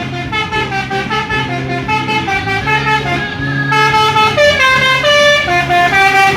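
Bus telolet horns, a multi-tone electric air-horn set, playing a fast melody of short stepped notes over a pulsing low tone. It gets louder and brighter nearly four seconds in.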